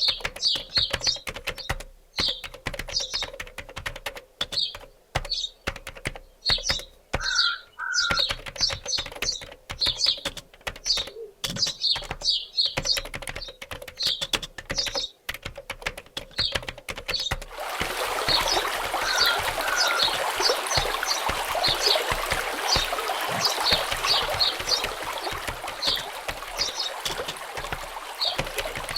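Small birds chirping in short repeated notes over a dense, irregular clicking. A little past halfway a steady rush of running water comes in and stays.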